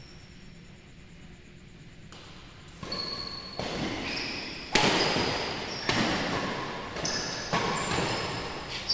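Badminton rally: racket strikes on a shuttlecock about once a second, starting about three seconds in, ringing in a large hall, with short high squeaks between the hits.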